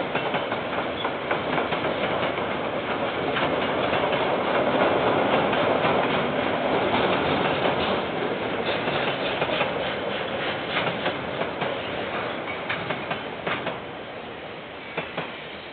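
KiwiRail train passing, its wagons rolling by with a steady rumble and a run of irregular clicks as the wheels cross the rail joints. The rumble swells to its loudest about halfway through, then fades away near the end as the last wagons pass.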